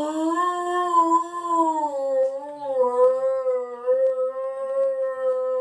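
A dog howling: one long, unbroken howl at a steady pitch that drops a little about two seconds in, with a few faint taps behind it.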